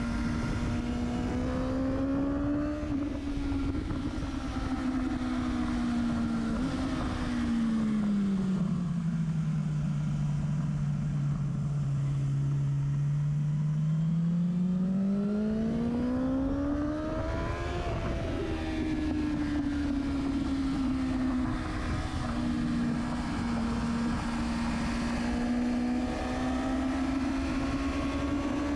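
Motorcycle engine and exhaust at track speed, heard close to the silencer, with wind rushing over the microphone. The engine note holds steady, falls away over a couple of seconds about eight seconds in and stays low, then climbs back up between about fifteen and eighteen seconds in.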